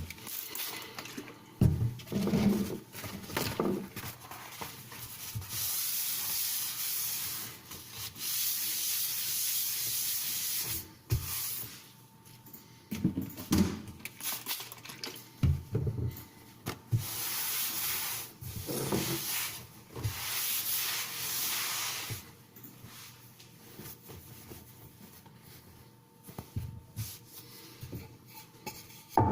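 Cleaning up a wet sharpening setup: two long stretches of hissing scrubbing noise, each several seconds, with knocks and handling of the stone and gear between them.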